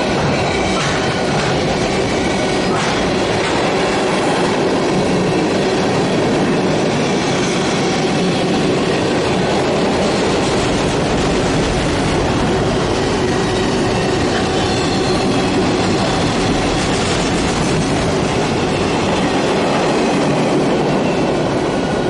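Freight train of loaded flatcars rolling past at close range: the steady, loud sound of steel wheels running over the rails, with a few faint high ringing tones over it.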